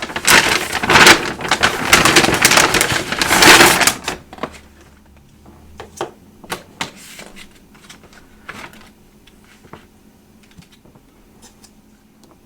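Close-miked eating sounds from a takeout rice bowl: dense, loud crackling and rustling for about four seconds, then quieter scattered clicks and wet smacks.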